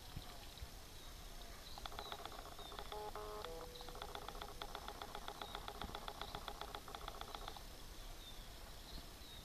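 A camera's autofocus motor hunting to re-focus: a rapid, even run of faint ticks with a short whine, starting about two seconds in and stopping about two seconds before the end.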